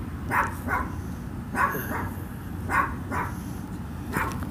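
A dog barking: short, sharp barks repeated every second or so, often in pairs, over a steady low hum.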